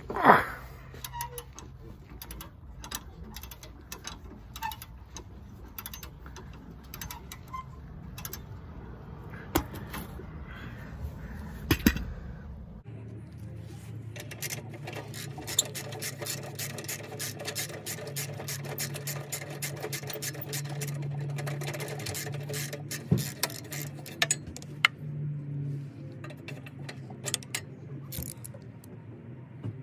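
Hand socket ratchet clicking in runs as a bolt under the car is turned, with scattered metallic clicks and knocks of the tools. It opens with a short, loud squeak.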